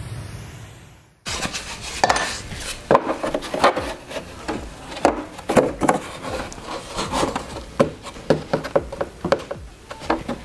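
Background music fades out about a second in; then irregular wooden knocks, taps and rubbing as hatch parts are handled and fitted onto a model airplane fuselage.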